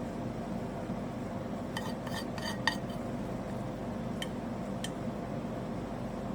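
Utensils clinking against ceramic dishes: a quick run of light clinks about two seconds in, then two single clinks, over a steady background hum.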